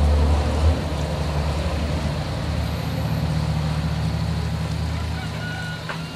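A motor vehicle engine running steadily, a low hum that eases off over the last second. There is a short knock under a second in.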